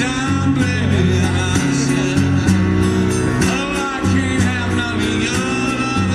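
Live blues band playing: a guitar line with bending notes over held bass notes and a light steady beat.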